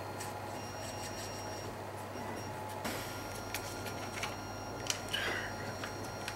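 Light clicks and taps of large 3D-printed plastic parts being handled and fitted together, a handful of them from about three seconds in, over a steady low hum.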